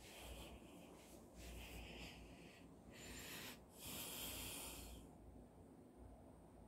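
Faint breathing close to the microphone: four soft breaths, the loudest about four seconds in.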